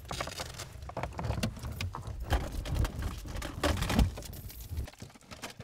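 Assorted clicks, knocks and rustles of people shifting about and handling things inside a car, over a low rumble that stops about five seconds in.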